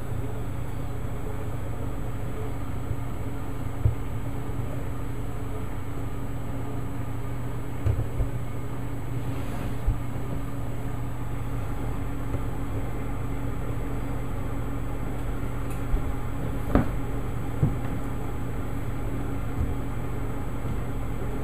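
Steady low hum from an electric wall oven running while baking, with a few scattered soft clicks.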